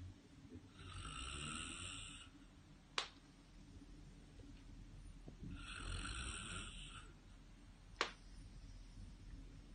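A person snoring: two long, hissy snores about five seconds apart, each followed a moment later by a sharp click.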